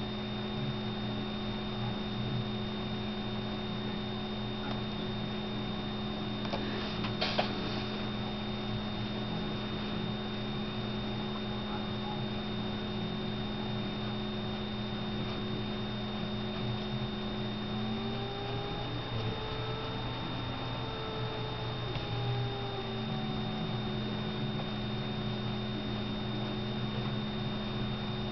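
Steady electrical hum: several constant tones over a low hiss. A brief click comes about seven seconds in, and between about 18 and 23 seconds the tones dip and bend in pitch before settling back.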